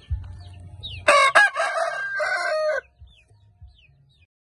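Thai game rooster crowing once, a loud crow lasting about a second and a half that starts about a second in. Faint, short, high falling chirps sound before and after it.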